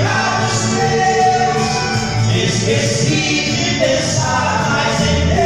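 Portuguese-language gospel song: voices singing a melody over instrumental backing with a steady bass line.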